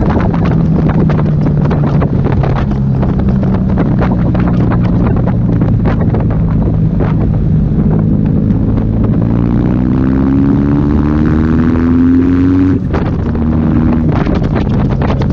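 Motorcycle engine breathing through a new GPR aftermarket exhaust while riding, with wind buffeting the microphone. The engine note holds fairly steady, then climbs steadily for about four seconds as the bike accelerates. Near the end it cuts off abruptly and comes back at a lower pitch.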